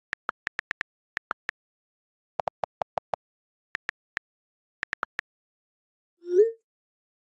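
iPad on-screen keyboard key clicks in an uneven typing rhythm, with a quick run of five deeper clicks in the middle. Near the end comes one short rising swoosh, the iMessage sent sound.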